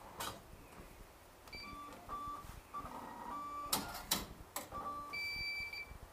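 Ticket vending machine sounding a series of short electronic tones and beeps during a purchase, with three sharp clicks about four seconds in and a longer beep near the end.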